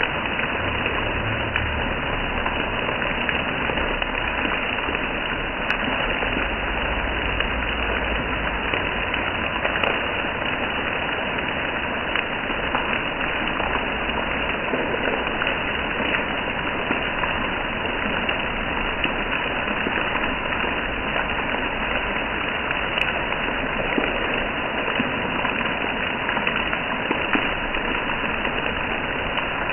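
Steady rain falling, an even hiss throughout. A low engine rumble runs underneath for roughly the first third, then fades.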